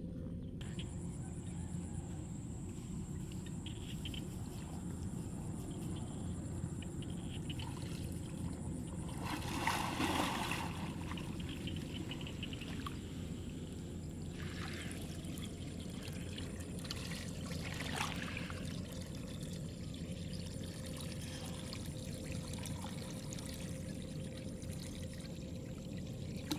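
Water pouring and trickling out of a plastic pipe into a plastic basket, over a steady low rumble. A louder burst of splashing comes about ten seconds in.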